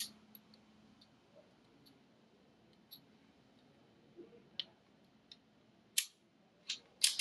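Sparse small metallic clicks and ticks as the slide stop is fitted into a 2011-style pistol, with sharper clicks about six seconds in and a few more near the end.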